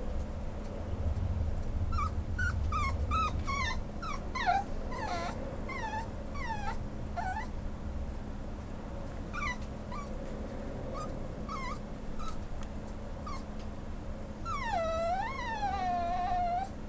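Schnauzer puppy whimpering: a run of short, high whines starting about two seconds in, a few scattered ones in the middle, and one longer whine with a wavering pitch near the end.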